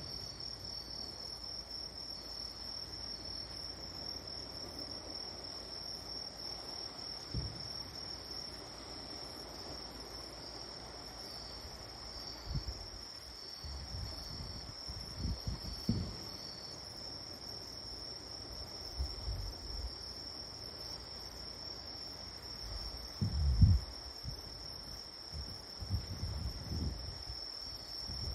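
A steady high-pitched trilling of insects, with scattered low, muffled booms of distant fireworks bursting, some coming in quick clusters. The loudest boom falls about three-quarters of the way through.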